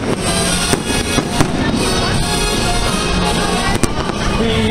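Grucci aerial fireworks bursting, with a few sharp bangs and a dense crackle in the middle, over music.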